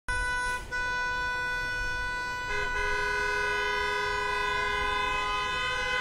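Car horns held down in long, continuous honks over a low traffic rumble. One horn sounds with a brief break about half a second in, and a second, lower-pitched horn joins about two and a half seconds in, the two blaring together.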